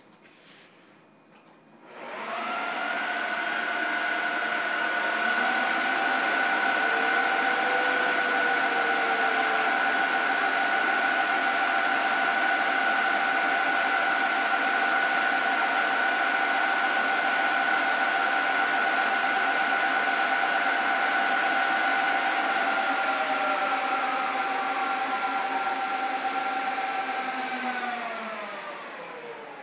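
Server cooling fans spinning up at power-on about two seconds in and running flat out at 100%: a loud rushing noise with a steady high whine. Near the end the whine glides down in pitch and the noise drops as the fans throttle back once the server has booted.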